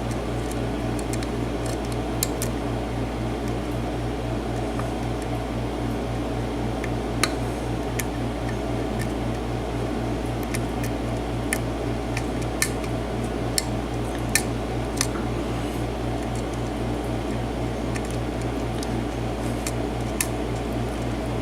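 Lock pick working the pins of a six-pin mortise lock cylinder: about ten faint, sharp metallic clicks at irregular intervals as the pins are probed and pushed, over a steady low background hum.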